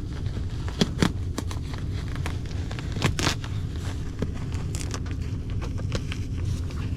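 Crinkling and crackling of ductwork and insulation being handled, with scattered sharp irregular clicks over a steady low rumble.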